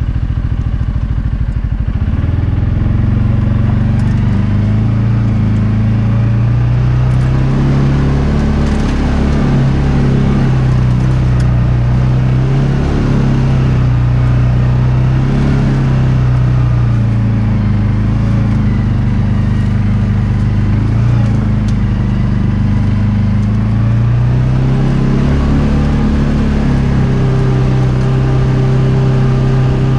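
CF Moto UForce 550 side-by-side's single-cylinder engine running while driving off-road, its pitch picking up about two seconds in and then rising and falling with the throttle, with a few light knocks and rattles.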